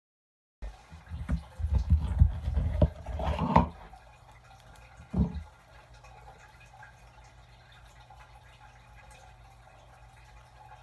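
Slime being squished and poked by hand: a quick run of wet squelches and pops over the first few seconds and one more squelch about five seconds in, then only a faint hum.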